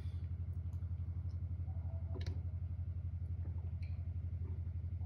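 Steady low hum that pulses rapidly and evenly, with a faint sharp click a little over two seconds in. Near the end, faint small sounds of a man knocking back a shot from a glass.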